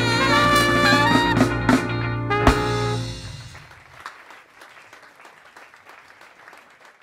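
Live band of guitars, saxophone, keyboard and drum kit holding the final chord of a song, with a few sharp closing drum hits. The band stops about three seconds in and the sound dies away, leaving faint scattered clapping.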